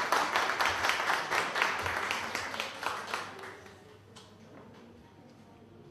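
Small audience applauding, starting abruptly and dying away after about three to four seconds.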